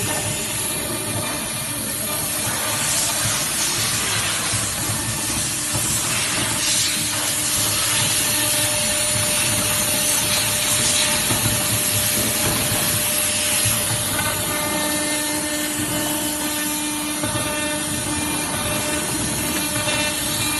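Small ATC CNC router machining aluminum: a steady hiss with high, steady spindle tones, and a lower tone coming in for a few seconds about two-thirds of the way through.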